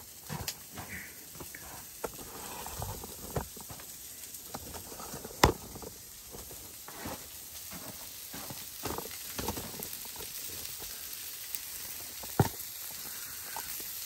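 Sausage, onions and bacon sizzling in a skillet, a steady hiss broken by scattered pops, with two sharp louder cracks, one about five seconds in and one near the end.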